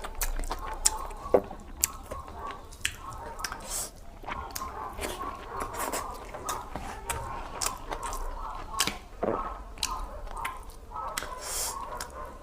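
Close-miked person chewing rice with potato and cabbage curry, with frequent sharp wet mouth smacks and clicks at an irregular pace.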